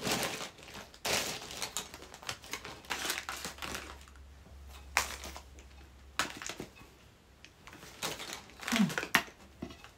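Crinkling of candy wrappers and basket tulle, with light clicks and taps of plastic Easter eggs, as an Easter basket is packed by hand. The rustling is irregular and densest in the first few seconds, with a sharp click about five seconds in.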